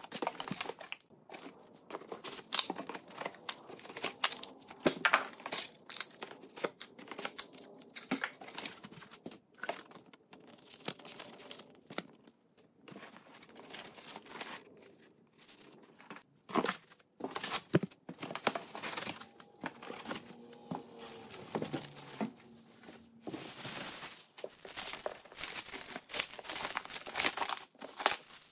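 Cardboard box flaps, foam packing and plastic wrap being handled during unpacking: irregular crinkling, rustling and tearing, with scattered sharp clicks and knocks.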